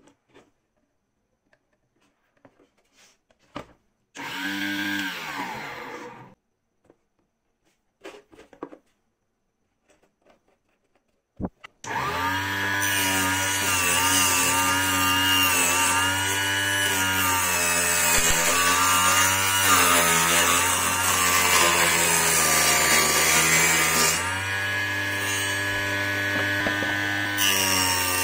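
Homemade mini table saw, an 895 DC motor driving a 100 mm circular saw blade. It runs briefly about four seconds in. Then, after a click, it starts again about halfway through and runs steadily for the rest of the time while plywood is fed through the blade, the motor's pitch wavering and dipping as the blade cuts.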